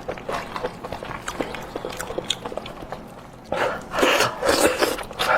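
Close-miked eating: a person chewing spicy goat-head meat, with small wet mouth clicks at first, then louder, repeated chewing and smacking from about three and a half seconds in.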